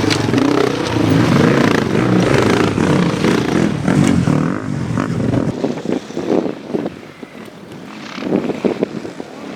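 Enduro motorcycle engine revving up and down as the throttle is worked over and over, then dropping away about halfway through, with a few short bursts of revving near the end.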